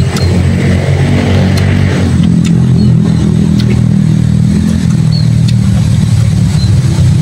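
A motor engine running steadily close by, a low even drone with no change in speed. Faint short high chirps and a few light clicks sound over it.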